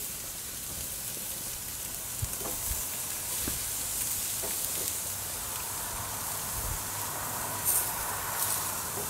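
Food sizzling on a hot grill grate as oil-brushed onion and tomato slices are laid down by hand beside cooking steaks: a steady hiss, with a few faint knocks and two short louder flares of sizzle near the end.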